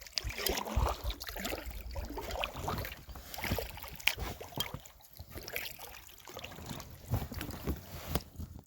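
A kayak-style paddle dipping and splashing in the water as a packraft is paddled along a stream, in irregular strokes. Wind rumbles low on the microphone underneath.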